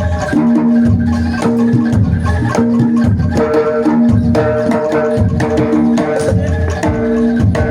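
Live jaranan gamelan music: drums beating a steady rhythm under tuned percussion repeating notes at a few fixed pitches.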